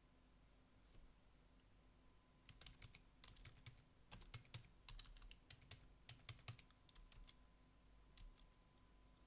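Faint typing on a computer keyboard: a quick run of keystrokes from about two and a half seconds in until about seven seconds, then a few last strokes near the end.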